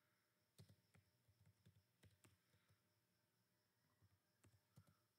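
Faint clicking of computer keyboard keys being typed, in short irregular runs over near silence.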